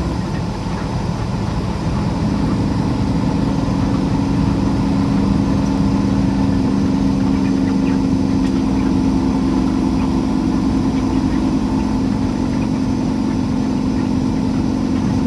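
Semi truck's diesel engine running steadily, heard inside the cab while driving. Its drone grows stronger about two seconds in and then holds even.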